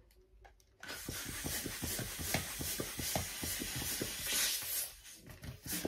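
Hand-held plastic balloon pump worked in quick strokes, starting about a second in: a rushing hiss of air with a knock at each stroke as a balloon inflates.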